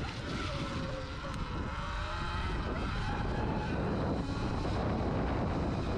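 Sur-Ron electric dirt bike on the move: the electric motor's whine rises and falls with speed over a steady rush of tyre and wind noise.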